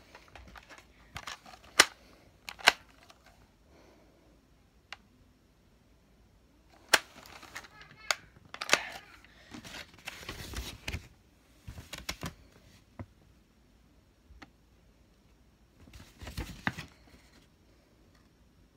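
Hard plastic Nerf Modulus blaster parts being handled and fitted: a scatter of sharp clicks and clacks with stretches of rustling handling noise.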